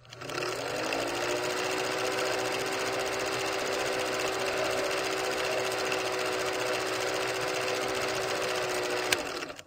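Film projector running: a rapid, steady mechanical clatter over a motor hum that rises in pitch as it gets up to speed at the start and then holds. A single click comes near the end, then it stops.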